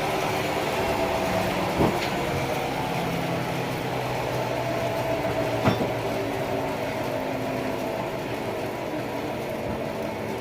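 Engine running steadily, with two sharp knocks about two and six seconds in.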